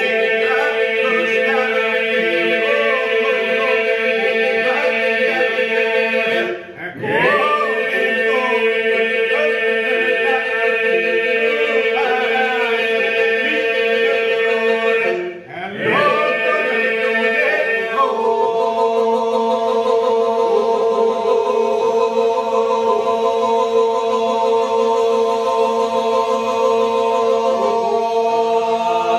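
A group of men singing unaccompanied in Lab iso-polyphonic style: lead voices carry a wavering melody over a steady drone held by the others. The singing breaks off briefly twice, about 7 and 15 seconds in, then resumes on the same drone.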